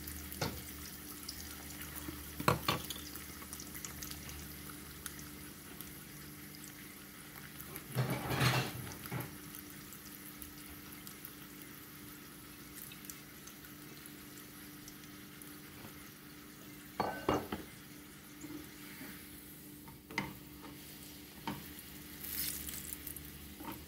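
Oil sizzling steadily under a corn tortilla frying in a small pan, with a few short knocks and scrapes of a utensil on the pans, the loudest about eight seconds in.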